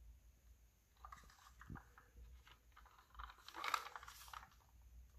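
Faint rustling and light clicks from a diecast DeLorean time machine model being handled and turned over in the hand, a little busier from about three seconds in.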